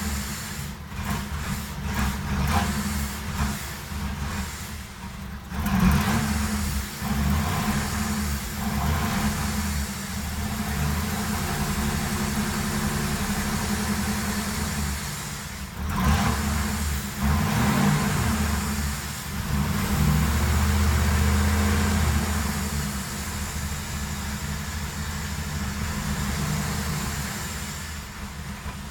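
2007 Ford Crown Victoria's V8 engine running, its level swelling and easing, with irregular clicks and knocks in the first few seconds.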